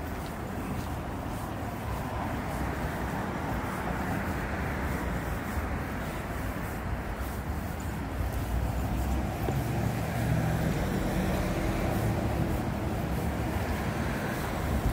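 City street traffic going by, a steady hum of passing vehicles. A heavier engine rumble builds and gets louder in the second half.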